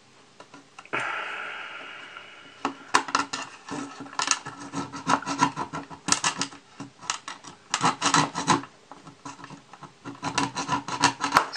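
A small hand tool scraping and cutting at a glued joint in a plastic model kit, working the part free in quick runs of short rasping strokes with short pauses between them.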